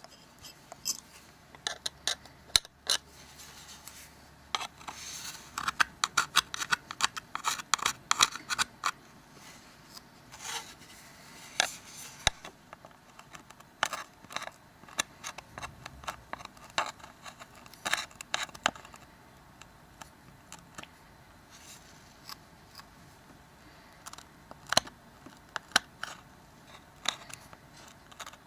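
Old adhesive being scraped off a smartphone's metal frame with a small hand tool: irregular scratching strokes and sharp little clicks, coming in busy bursts with pauses between.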